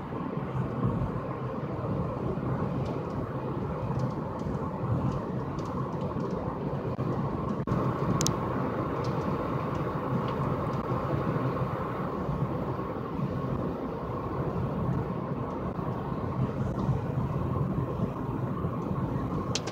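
Steady low rumbling noise with a faint, even hum through it, and a brief click about eight seconds in.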